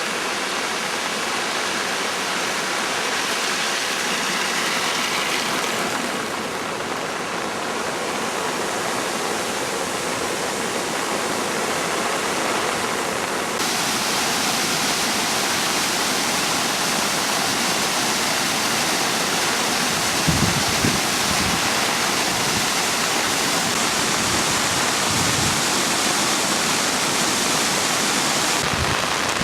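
Rushing water of a rain-swollen mountain stream or waterfall, pouring steadily. Its sound changes abruptly twice, and a few low bumps come about two-thirds of the way in.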